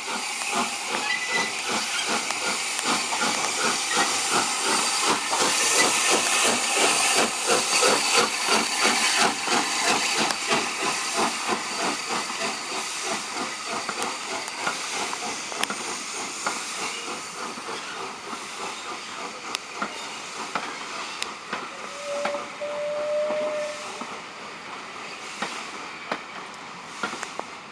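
Southern Railway Schools class 4-4-0 No. 925 Cheltenham, a three-cylinder steam locomotive, pulling away with its train: rapid, even exhaust beats over hissing steam, loudest a few seconds in and fading as it draws away. A brief steady tone sounds about three quarters of the way through.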